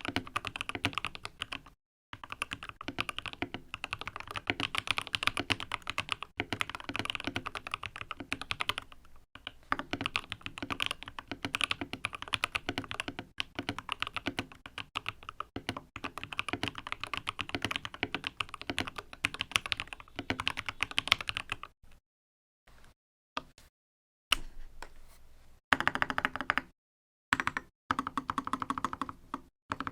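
Typing on an Optical GK61 mechanical keyboard with lubed and filmed Gateron Optical Yellow linear switches and YMDK Godspeed keycaps: fast, continuous keystrokes, breaking into short bursts with silent gaps over the last several seconds.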